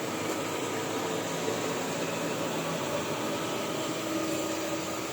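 Steady machine-shop background noise: an even rushing hiss with faint steady hum tones under it.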